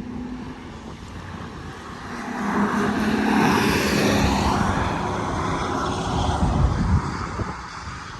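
A vehicle passes on the highway: road and engine noise swell to a peak about four seconds in, then fade. Wind buffets the microphone with low rumbles near the end.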